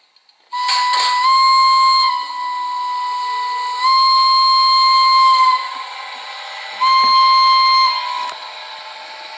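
Zimo sound decoder in a Roco HO model of an SBB Ae 3/6 electric locomotive, playing the loco's compressed-air whistle through the model's speaker. It gives three long blasts, each a steady tone that sounds like a steam whistle, with a fainter hiss carrying on between and after them.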